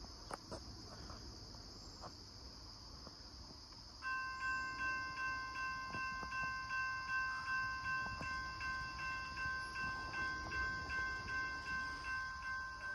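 A railroad grade-crossing warning bell starts ringing about four seconds in, a steady ding about twice a second: the crossing has been activated for an approaching train. Insects buzz steadily underneath.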